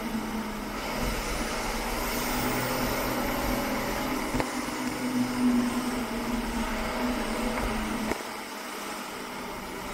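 KAMAZ fire truck's diesel engine running with a steady hum. About eight seconds in the low rumble drops away and the sound gets quieter.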